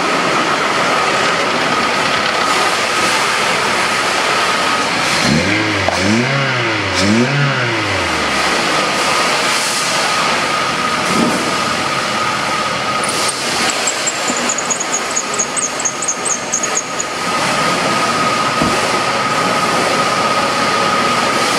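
Toyota Avanza engine running, blipped twice about six seconds in so the pitch rises and falls, over a steady high whine. Later a high wavering squeal lasts a few seconds.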